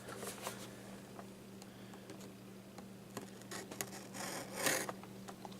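Scissors snipping and working at plastic toy packaging: faint scattered clicks and rubbing, with a brief scrape about four and a half seconds in.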